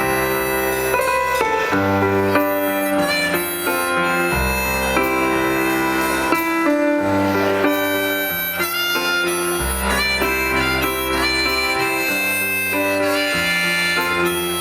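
Music: a song with a bass line that moves to a new note every second or two under several higher melody instruments, playing without a break.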